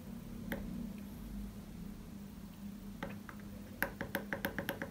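A steady low hum from the running transformer charger, with a single click about half a second in and then, from about three seconds in, a quick run of small clicks, about five a second, as the charge voltage is stepped up.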